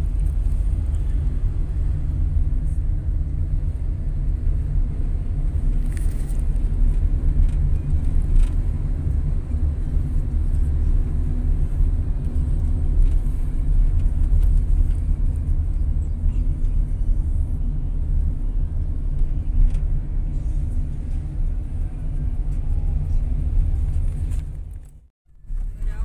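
Steady low rumble of a car driving, heard from inside the cabin: engine and road noise. It drops out briefly near the end.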